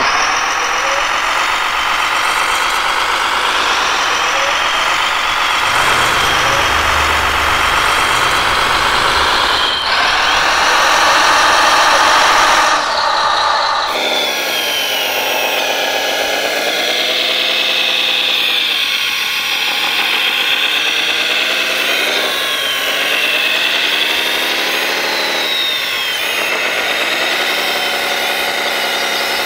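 Whine of 1:14 scale RC construction machines' electric motors and gearing, fairly steady at first, then rising and falling in pitch again and again as the machines speed up and slow down.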